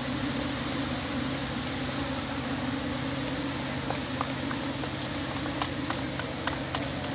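Steady droning hum of a swarm of light-show drones descending to land. Scattered sharp hand claps start about four seconds in and grow more frequent as applause begins.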